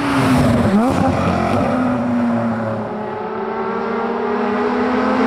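Porsche Cayman GT4 flat-six running through an aftermarket sports exhaust as the car drives past. The pitch dips and recovers quickly about a second in, then the note holds steady.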